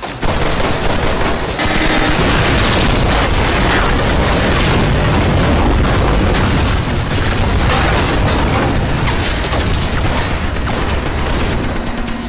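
Action-film sound effects: a dense barrage of explosions and gunfire. It starts suddenly just after the beginning and eases off near the end.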